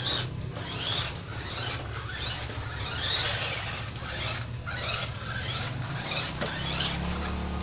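A 1:10-scale electric RC drift car being driven, giving a string of short squeaky rising chirps about once a second over a steady low hum.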